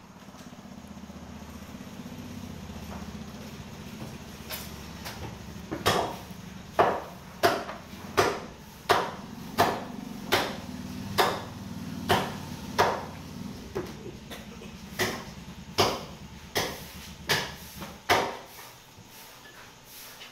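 A steady run of heavy knocks, about one every three quarters of a second, starting about six seconds in, with a short break about two thirds of the way through. A low steady hum lies under the first few seconds.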